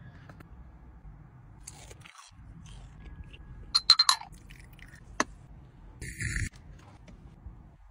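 Handling sounds from small coffee cups: a quick cluster of sharp clicks and taps as the stacked cups are picked up and separated, one more click a second later, and a short rustle near the end, over a low steady hum.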